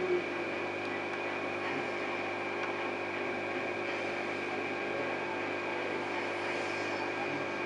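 A steady motor hum with hiss and several constant whining tones, unchanging throughout.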